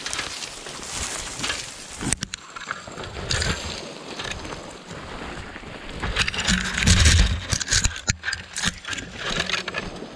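Rustling, crackling and sharp knocks of people moving on foot through vegetation, with a heavy low rumble on the microphone that peaks about six to eight seconds in.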